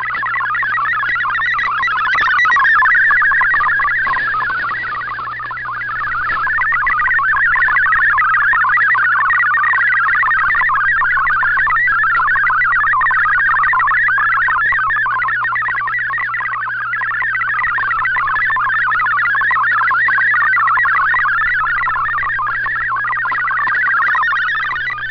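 MFSK64 digital-mode data signal from a shortwave broadcast, heard through an Icom IC-R8600 receiver's audio: a dense, fast-changing warble of many high tones, with a steady low hum underneath. It dips slightly in strength about five seconds in.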